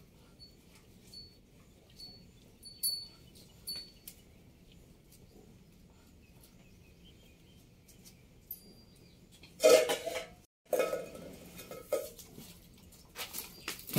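Light metallic clinks with a short high ringing, a few times in the first few seconds, then a louder flurry of knocks and shuffling about ten seconds in and again near the end, as the calf suckles and is led away.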